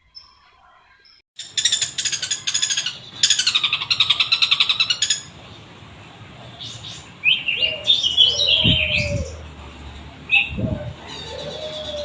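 Long-tailed shrike (cendet) singing a varied song made up of imitations of other birds. It opens with a loud, rapid, harsh chatter lasting about three and a half seconds, then gives shorter squeaky chirps and a few low rising-and-falling notes.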